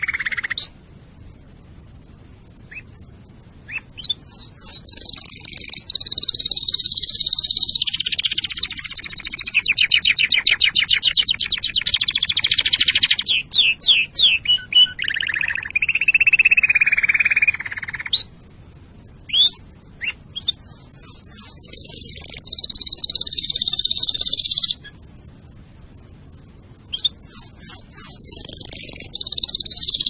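Domestic canary singing: long phrases of rapid trills and quick runs of repeated gliding notes, high-pitched, broken by short pauses of a second or two.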